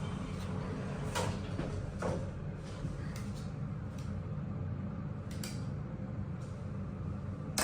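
Steady low hum inside an elevator car, with a few soft clicks spread through it, typical of buttons being pressed on the car's panel while the selected floor stays locked out.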